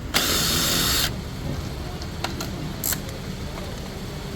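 A power tool runs in one short burst of about a second while the fog-light bolts are being removed, followed by a few light clicks.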